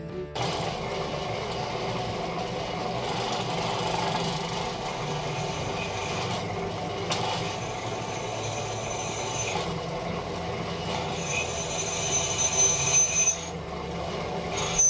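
Steady, harsh metalworking noise starting abruptly about half a second in, with a thin high whine coming and going in the second half, typical of power tools or a welder working steel parts for a motorcycle centre stand.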